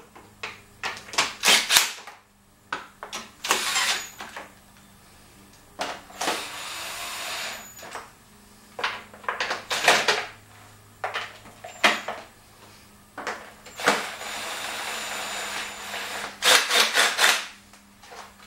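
Ryobi cordless drill/driver running bolts into a scooter's frame: several short trigger bursts and two longer steady runs of about two seconds each, with knocks and clanks of parts being handled in between.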